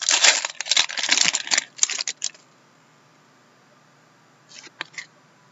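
Trading card pack wrapper being torn open and crinkled for about two seconds. A few light taps follow near the end as the cards are handled.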